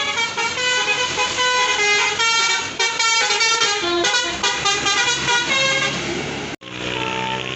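Bus's Basuri 'telolet' musical horn playing a quick run of notes that step up and down like a tune. It breaks off abruptly near the end, and a lower, steadier tone follows.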